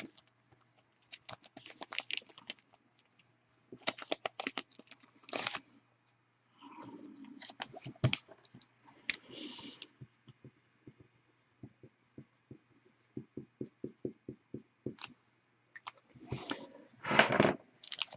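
Trading cards and their plastic holders being handled on a table: scattered scrapes, rustles and clicks. A quick even run of small ticks comes past the middle, and a louder burst of handling comes near the end.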